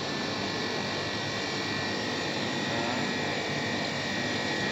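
Chest freezer's condenser fan, with a newly replaced fan motor, running alongside the compressor: a steady whir with a thin, steady high whine over it.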